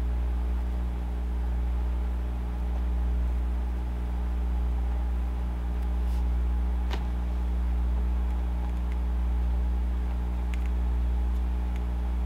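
Cooling fan on the heat sink of an electronic DC load running steadily under load, a low hum with a slow regular pulsing, while the load draws about 11 amps from the battery. One faint tick about halfway through.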